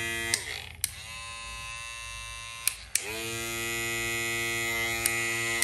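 Cordless 7,000 RPM electric hair clippers buzzing and being switched off and on. The buzz cuts off with a click less than half a second in, and a fainter hum and a few switch clicks follow. About three seconds in the buzz starts again, rising quickly to a steady pitch, and it stops with a click near the end.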